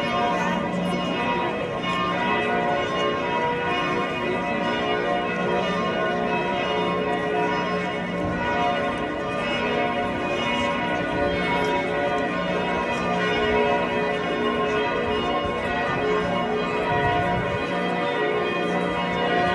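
Church bells of St. Stephen's Cathedral tower, several ringing at once, their strokes overlapping into a continuous, steady peal.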